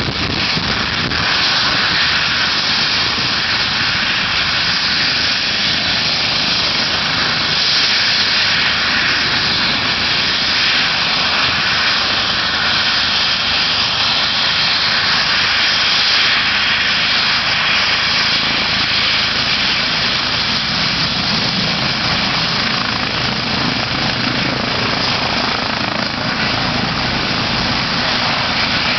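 Eurocopter EC135 helicopter with a fenestron tail rotor, running on the ground with its main rotor at speed just before take-off: a steady, loud rushing noise of turbines and blades.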